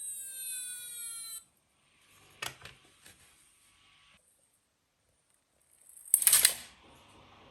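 Electronic siren of a toy minicar gliding down in pitch, then cutting off abruptly about a second and a half in. A few light plastic clicks follow, and near the end there is a short, loud clatter.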